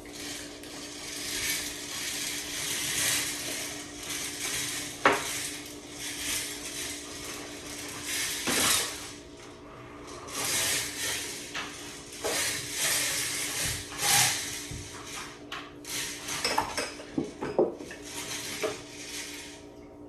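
Pots, pans and cooking utensils clattering and scraping in repeated bursts, with sharp knocks, over a steady hum.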